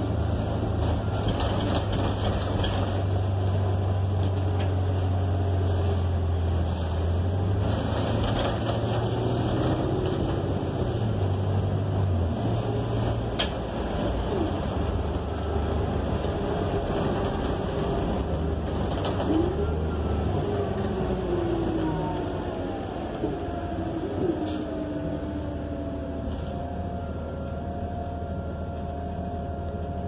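Interior of a New Flyer XN40 natural-gas bus under way: a steady low drone from its Cummins Westport L9N engine over road noise. From about halfway, several tones glide up and down in pitch as the bus changes speed, settling into one held whine near the end. The overall level eases slightly after about two-thirds of the way.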